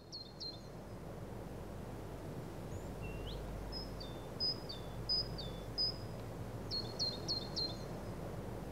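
Small songbird calling in short, high chirps: a quick run of four at the start, single calls with a short pitch glide through the middle, and another run of four near the end. Under the calls is a faint, steady low background noise.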